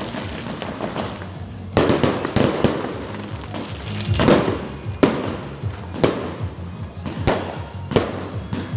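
Fireworks going off close by: a run of sharp bangs about once a second, with dense crackling between them.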